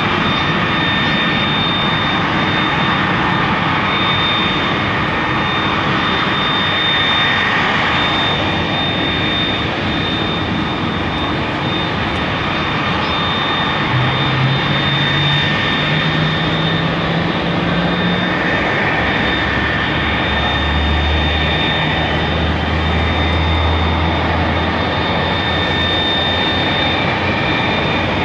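Airbus A330 airliner's jet engines running with a steady high-pitched whine over a dense rush. About halfway through, a low hum climbs in pitch in steps, then gives way to a deeper hum for a few seconds.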